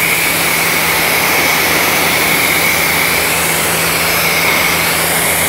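Pressure washer spraying a jet of water to rinse mud off a car's coated paint and glass: a loud, steady hiss with a steady hum beneath it.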